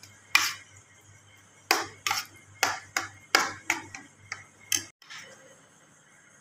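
A spoon clinking against a ceramic plate as mashed eggplant is gently folded into yogurt: about nine light, irregular taps over the first four to five seconds.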